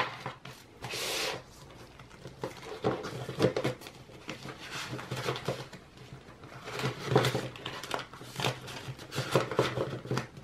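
Paper banknotes and a clear plastic zipper pouch being handled: irregular rustling of bills and crinkling plastic, with the pouch's zipper worked near the end.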